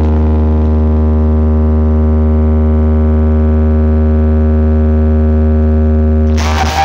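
Loud DJ speaker wall driven by stacked amplifiers, holding one steady low, buzzy note during a speaker check. The note cuts off about six seconds in and a different sound takes over.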